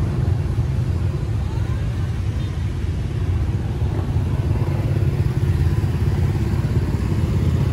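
Steady low rumble of street traffic, mostly motorbikes, with faint voices of people in the market crowd.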